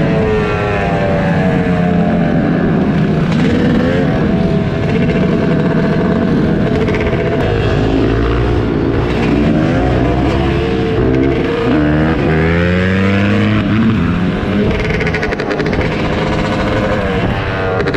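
Dirt bike engines revving up and down while riding, the rider's own blue Yamaha close by with other bikes and ATVs around it; several engine tones overlap, their pitch rising and falling again and again.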